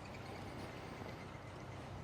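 Summer evening neighborhood ambience: a steady faint low hum and hiss, with a quick run of faint, evenly repeated chirps from a bird or insect that fades out about a second in.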